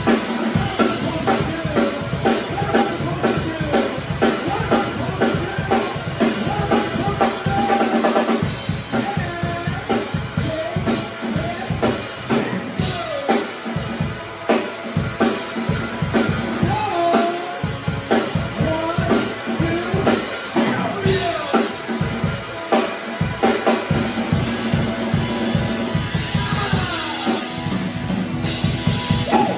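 A live band playing, with a drum kit keeping a steady beat of kick and snare under melodic lines.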